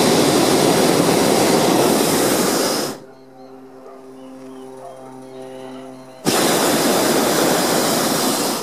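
Hot air balloon's propane burner firing twice: a loud blast of about three seconds that cuts off suddenly, then after a pause of about three seconds a second blast of a little over two seconds.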